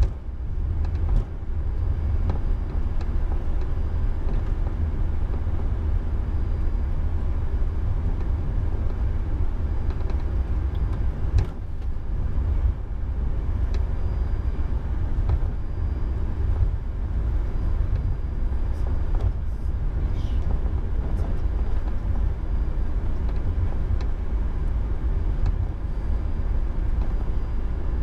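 Steady low rumble on the flight deck of an Airbus A340-300 taxiing, with a few short knocks and clicks, one louder than the rest about eleven seconds in.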